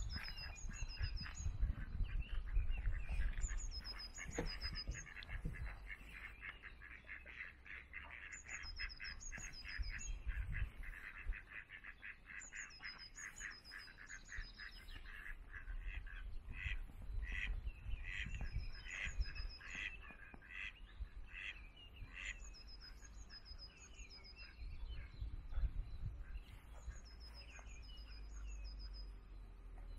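Ducks quacking in quick runs, with a small songbird repeating a short high phrase every few seconds. Wind rumbles on the microphone.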